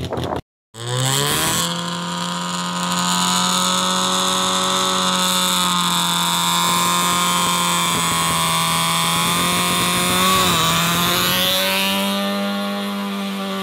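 First-generation Toyota Yaris rally car's engine held at high, steady revs on the stage start line after a quick rise in the first second. About ten seconds in the pitch dips as the car launches, then climbs as it pulls away.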